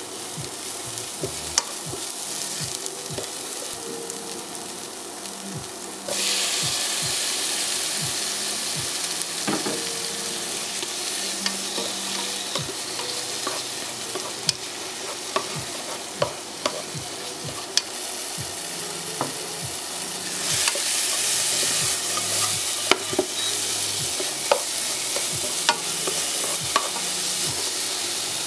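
Minced shallots and garlic, later with diced tomato, frying in butter in a pot, sizzling steadily while a slotted spatula stirs and scrapes, with frequent sharp clicks of the spatula against the pot. The sizzle grows suddenly louder about six seconds in and swells again around twenty seconds in.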